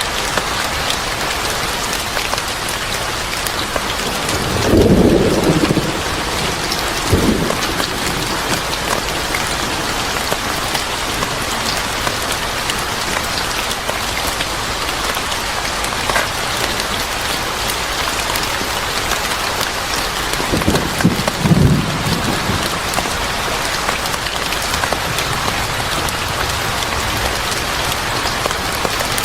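Steady heavy rain falling on a surface, with thunder rumbling low twice: a few seconds in and again about two-thirds of the way through.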